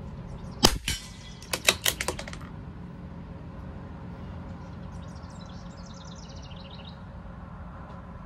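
CZ 457 bolt-action .22 LR rifle: one loud sharp crack with a low thump, then about a second later a quick run of about five metallic clicks as the bolt is worked.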